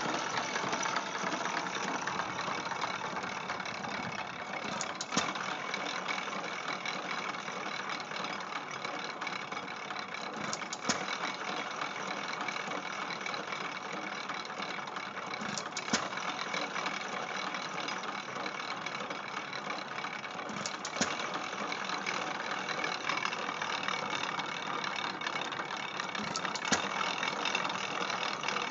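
1909 IHC Famous hit-and-miss gas engine running an IHC Type D feed grinder by belt. Steady mechanical clatter with a single sharp bang about every five seconds as the engine fires, coasting between firings.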